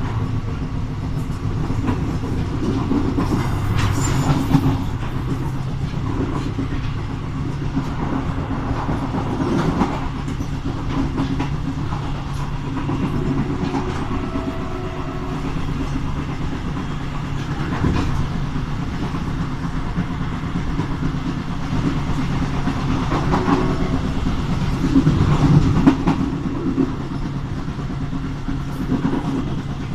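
Train hauled by an SNCFT 040-GT diesel-electric locomotive running along the line: a steady low engine drone with the wheels clacking over rail joints now and then, getting somewhat louder near the end.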